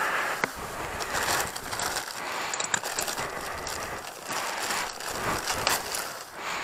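Spark plug wrench working a spark plug out of a motorcycle cylinder head: irregular metal scraping and rustling with a few sharp clicks. The plug is being removed to check its colour for a lean mixture.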